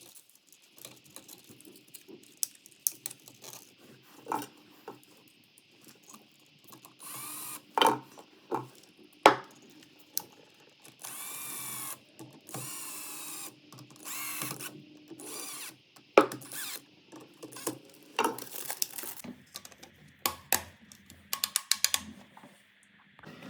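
A power drill/driver runs in short spells of one to two seconds, three times, among many clicks and knocks of tools and hardware being handled.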